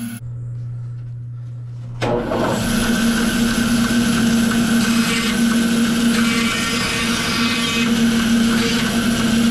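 Bandsaw running and cutting through a small block of wood fed by hand. A low steady hum gives way suddenly, about two seconds in, to the saw's loud, steady running noise.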